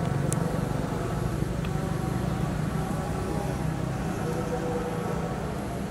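Steady low rumble of distant road traffic with faint voices in the background, and two light clicks early on.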